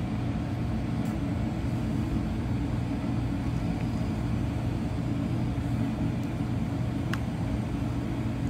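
Steady low machine hum, with a few faint light clicks, one about a second in and one near the end.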